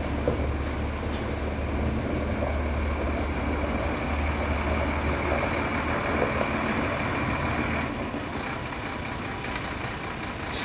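Diesel engine of a Thaco Auman dump truck running at low revs as the truck moves off slowly, its low hum dropping away about eight seconds in.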